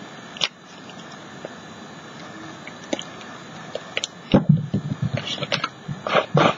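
Small handling sounds of painting at a work table: a few isolated clicks, then from about two-thirds of the way in a run of soft taps, dabs and scrapes of a paintbrush working paint on the canvas and palette, over a steady hiss.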